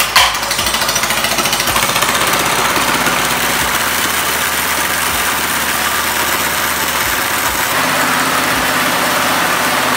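Mini bike's small single-cylinder engine firing up and then running steadily at idle, with the rear wheel turning. The worn centrifugal clutch is grabbing at idle instead of slipping, so the engine drives the rear tire even at low revs.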